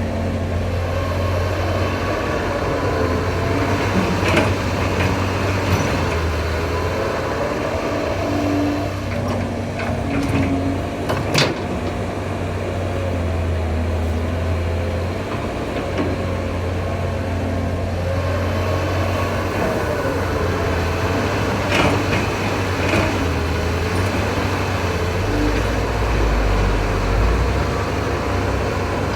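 Excavator's diesel engine running steadily under load, with a whine that rises and falls as the machine works and a few sharp metallic clanks, the loudest about a third of the way through.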